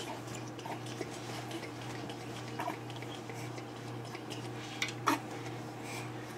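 Faint scattered clicks and small taps over a steady low hum, with a short, sharper sound about five seconds in.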